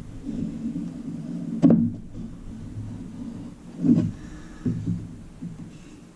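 Handling noise at a workbench: a few sharp knocks and thuds, about two seconds in and again around four seconds, as a wooden panel and a clothes iron are moved about, over a low steady rumble.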